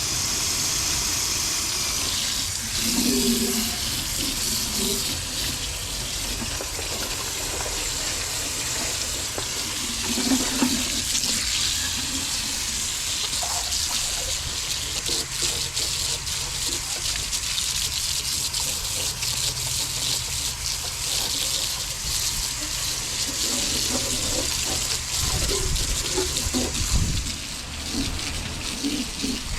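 Water running and splashing steadily as it rinses sanding grit out of a freshly sanded car engine bay.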